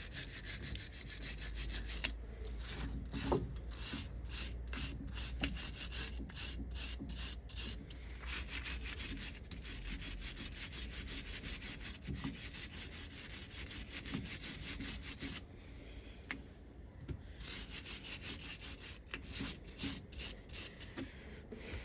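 Hand scrubbing of brake caliper metal with an abrasive in repeated back-and-forth strokes, cleaning the part up before the new pads are fitted. The scrubbing eases off briefly about two-thirds of the way through, then resumes.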